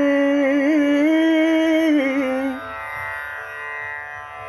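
Background song: a singer holds a long, wavering note over instrumental accompaniment. About two and a half seconds in, the voice stops and quieter accompaniment carries on alone.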